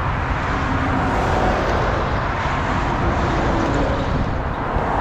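Steady roar of motorway traffic passing close by.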